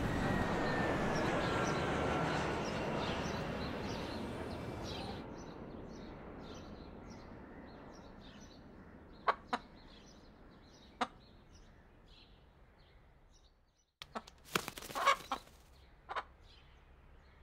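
City traffic noise fading away over the first dozen seconds, with faint small-bird chirping. A rooster clucks a few short times, then after a brief silence gives a louder run of clucks about two-thirds of the way through, and one more shortly after.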